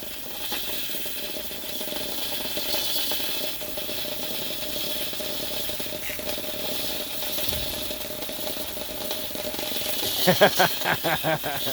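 Pressure washer spray driving a bowl to spin, a steady rushing hiss of water with a steady hum and a light rattle. Near the end a person's voice breaks in with short, quick bursts.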